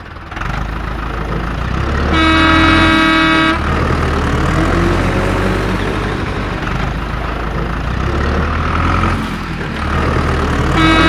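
Heavy vehicle engine running with a steady low rumble, and a horn sounding one steady tone for about a second and a half about two seconds in, then again near the end.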